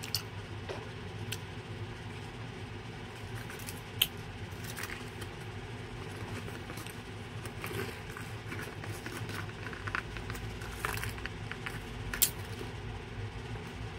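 Close-up mouth sounds of someone chewing chocolate: scattered small clicks and crackles over a steady low hum, with a sharper click about four seconds in and another near the end.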